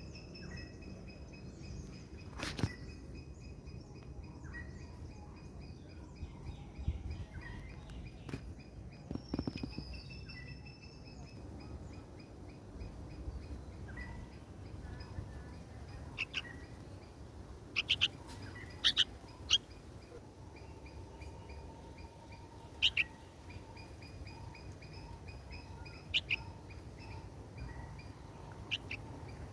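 Red-vented bulbul chirping: fast series of short high chirps, with several louder, sharp chirps in the second half.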